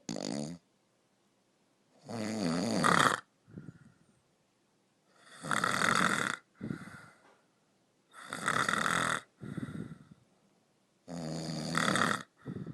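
A person snoring: a loud snore about a second long, then a shorter, softer breath out, repeating about every three seconds.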